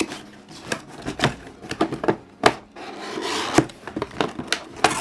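Cardboard box being opened by hand: a string of sharp taps and knocks as the lid and flaps are handled, rubbing and scraping, with a longer scrape about three seconds in.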